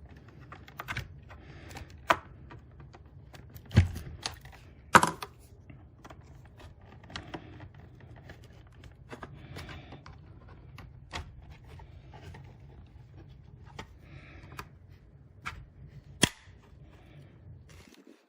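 Irregular plastic clicks and creaks as a clip-fastened plastic hard-drive enclosure is pried apart, with louder sharp snaps about 4, 5 and 16 seconds in.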